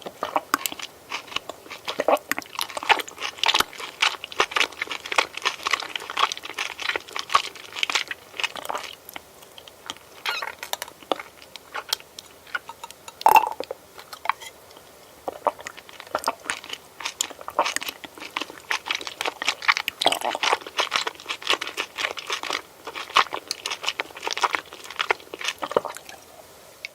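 A person chewing crunchy food close to the microphone, in runs of crisp, crackly crunches. There is a lull about halfway through, broken by one loud snap.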